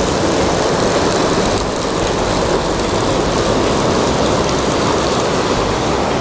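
Ocean surf washing against a rocky shoreline: a steady rushing wash of waves with no separate strikes.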